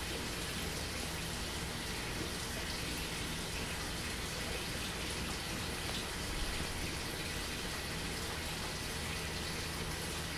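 Steady watery hiss and trickle from a vivarium's ultrasonic fogger running in its pond, even and unchanging throughout.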